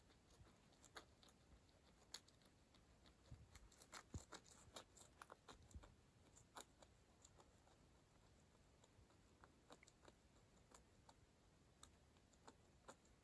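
Near silence with faint, scattered light ticks and scratches, busiest a few seconds in, from a cat stalking and pouncing on a wand toy's string on rugs.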